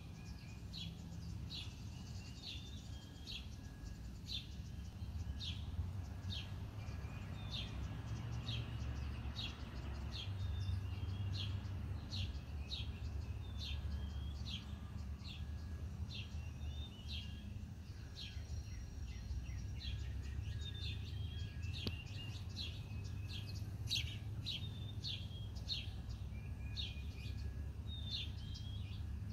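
Bird chirping repeatedly: short, high chirps about twice a second, over a low steady rumble.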